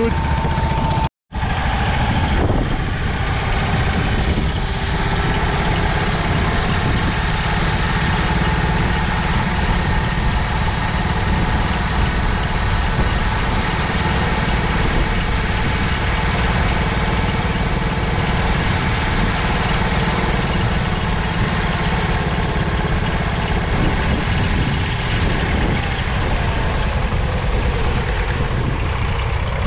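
1969 Martin Markham Colt tractor's 1.0-litre petrol engine running steadily as it pulls a plough, with the sound cutting out for a moment about a second in.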